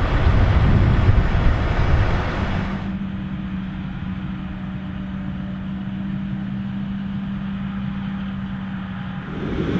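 Tractor engines running. The first couple of seconds are loud and rough, then the sound changes abruptly to a quieter steady drone with one held low pitch, and turns rough and loud again near the end.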